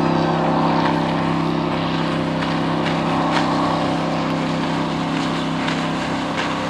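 Boat's engine running steadily with a constant, even hum, and a few faint ticks over it.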